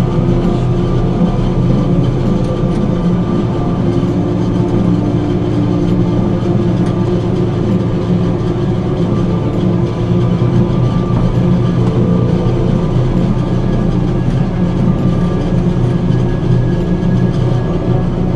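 A heavy engine or machine running steadily, a constant low hum with no change in pace.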